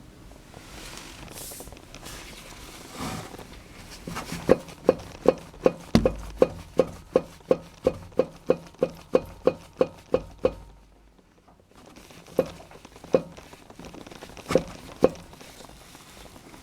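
Toyota Succeed drive shaft knocking: a regular run of sharp metallic knocks at about three a second for some six seconds over a low rumble, then after a short pause a few single knocks. The knock itself is the fault being shown.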